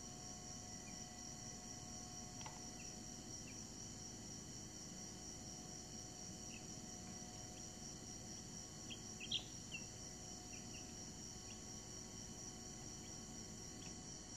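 Faint, scattered peeping of week-old Brahman chicks, a quick cluster of peeps about nine seconds in, over a steady high-pitched hiss.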